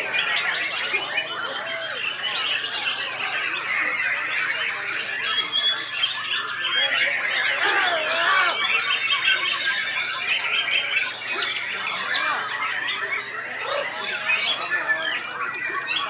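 White-rumped shama (murai batu) singing in a songbird contest: a continuous, dense tangle of loud varied whistles, trills and harsh chattering calls, overlapping with other caged birds singing at once.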